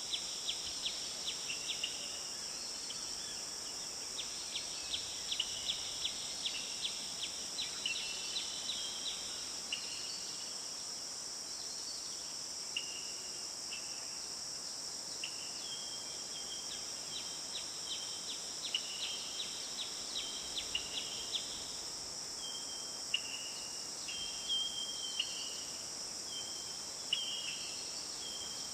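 Forest ambience: a steady, high-pitched drone of insects, with birds calling over it in short repeated chirps and quick rattling series of notes.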